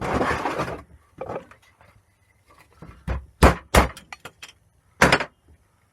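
Scrap parts being handled: a short burst of rustling and scraping, then a series of sharp knocks and bangs with smaller clicks between, the loudest about three and a half seconds in.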